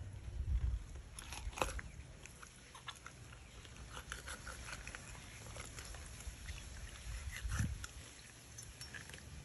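Wet squelching and small clicks as hands pull at the innards of a freshly opened hybrid giant catfish, with two soft thumps against the wooden chopping block, one just after the start and one near the end.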